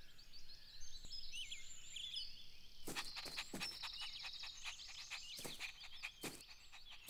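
Faint background birdsong: small birds chirping and tweeting in short high calls, with a trill in the middle and a few light ticks.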